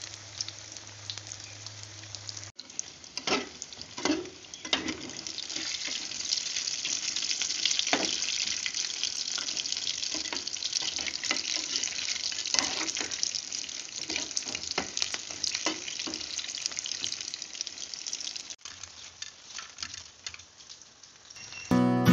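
Potato bites deep-frying in hot oil in a metal pot: a steady crackling sizzle. A spoon stirring them scrapes and knocks against the pot now and then.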